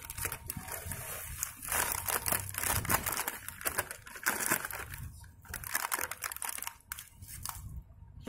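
A plastic snack packet crinkling as it is tipped and shaken, with crunchy chana jor pieces falling out into a glass bowl. The crackle eases off near the end.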